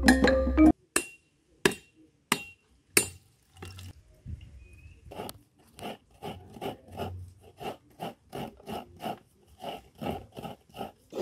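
A few sharp knocks, then from about halfway in a steady rhythm of short rasping strokes, about three a second: a half coconut being grated against a metal grater, with the flesh falling into a metal pot.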